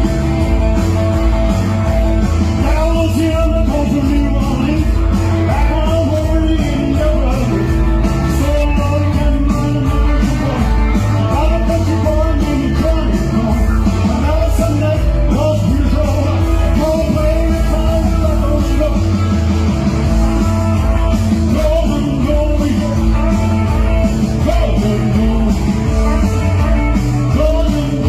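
Rock and roll song: a singer over guitar and a steady beat.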